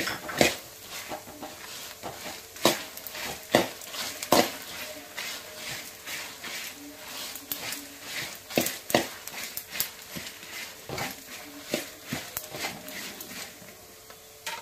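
Flat metal spatula scraping and clinking against a metal pan as dried red chillies, coriander seeds and cumin seeds are stirred and dry-roasted in a little coconut oil. Irregular strokes, some sharper and louder than others, dying away near the end.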